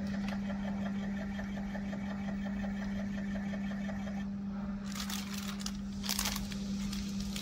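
Screw-auger powder filling machine running with a steady hum and a fast ticking, about six ticks a second, which stops a little past halfway. Then plastic pouches crinkle as they are handled.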